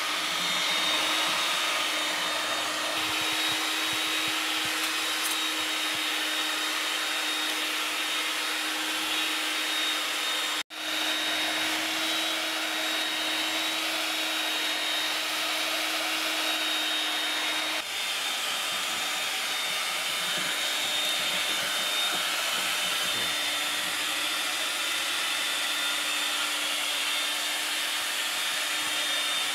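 Electric hand mixer running at a steady speed, its beaters whipping cake batter in a plastic bowl: an even motor whine with whirring hiss. It drops out for an instant about a third of the way in.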